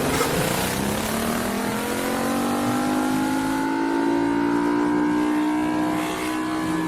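A siren winding up. Its tone glides up steeply over the first second or so, then climbs slowly and holds, with a rough noise under it that sounds like an engine in a car.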